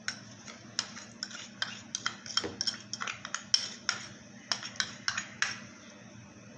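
A metal spoon scraping and knocking against a small glass bowl and a ceramic dish as powdered sugar is scooped out: a quick, irregular run of light clinks and taps that stops about a second before the end.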